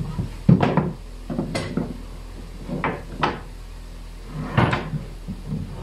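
Wooden parts of a bench being handled and set down: a series of separate knocks and bumps of wood on wood. The loudest come about half a second in and again just before the five-second mark.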